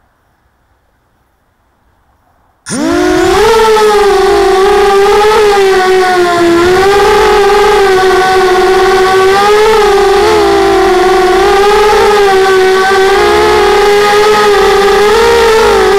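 Electric motors and propellers of a small FPV drone, heard close up from its onboard camera. They spool up suddenly from silence about three seconds in, then whine loudly at a high pitch that wavers up and down with the throttle.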